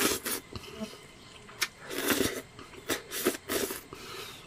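Instant noodles slurped off chopsticks: a string of about six short slurps.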